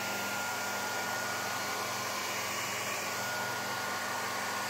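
Hand-held hair dryer running steadily, its air blowing through a kitchen colander held against curly hair as a makeshift diffuser, with a faint, high, steady whine.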